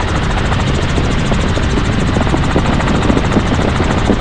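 Tour helicopter in flight: steady rotor and engine noise with a fast, even beat from the blades.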